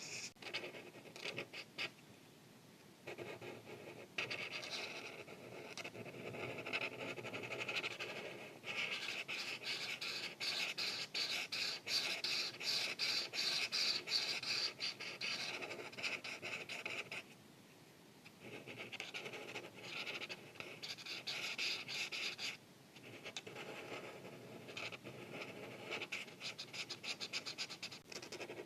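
Art marker tip scratching across paper in quick back-and-forth colouring strokes, in several stretches with short pauses between them; the strokes are busiest and loudest through the middle.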